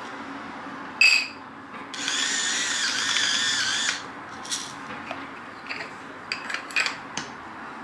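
Salter battery-powered electric pepper mill whirring as it grinds black pepper: a short burst about a second in, then a steady run of about two seconds, followed by a few light clicks.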